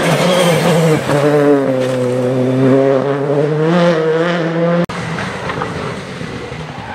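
Citroën C3 Rally2 rally car's turbocharged four-cylinder engine held at high revs through a corner, the pitch dropping about a second in, holding, then climbing again. The engine cuts off abruptly just before five seconds in, leaving a quieter, rougher noise.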